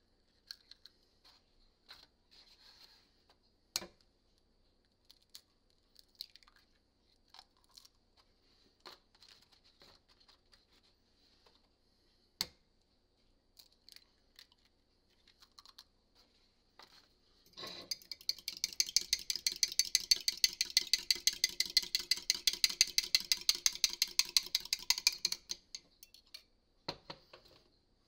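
Eggs cracked and their shells handled over a ceramic mug, with scattered light clicks and a couple of sharper cracks. About two-thirds of the way in, a utensil beats the eggs in the mug: a rapid, even clinking for about eight seconds, the loudest part.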